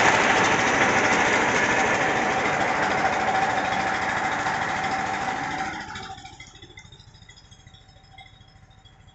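Diesel engine running, growing gradually fainter, then dropping away abruptly about six seconds in, leaving only a faint steady hum.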